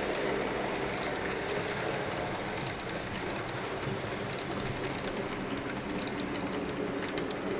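Narrow-gauge model trains running on layout track: a steady rolling rumble with light, irregular clicks of wheels over the rails as a passenger coach passes close by.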